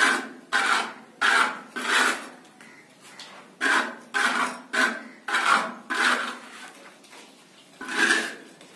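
A small hand tool scraping along a cement-plaster ceiling border moulding, shaping and smoothing it in quick back-and-forth strokes about two a second. There are two short pauses, about three and seven seconds in.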